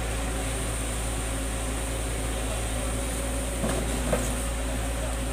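Heavy diesel engines of an excavator and tipper truck running steadily at low revs, with a couple of light knocks about four seconds in.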